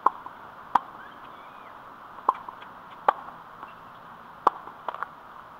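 Tennis balls striking a hard court and racket: a string of short, sharp pops at uneven intervals, three of them close together near the end.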